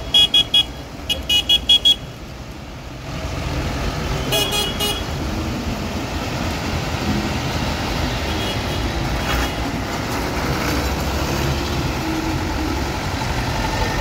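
Tractor diesel engines running as tractors pass, a steady low rumble that swells about three seconds in. A horn toots in a quick series of short blasts during the first two seconds and again briefly about four seconds in.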